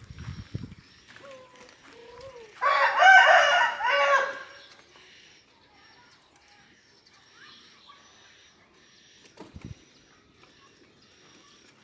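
A rooster crows once, loudly, for about two seconds, a few seconds in. A fainter wavering call comes just before it, and there are soft low thumps at the start and later on.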